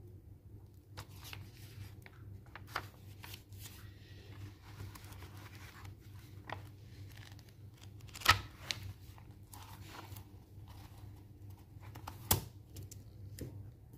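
Paper pages of a notebook being turned and handled, soft rustles and light clicks over a steady low hum. There are two sharp knocks, about eight seconds in and again about twelve seconds in.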